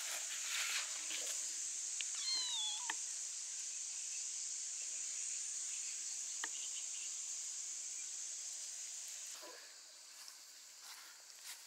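A kitten gives a short meow about two seconds in, over a steady high-pitched chirring of insects in the grass. The insect chirring stops abruptly about nine seconds in.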